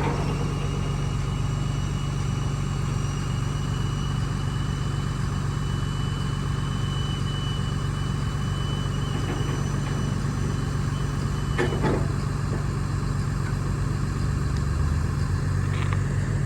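Truck engine idling steadily. A thin high whine runs over it and stops with a click about twelve seconds in, and there is another click near the end.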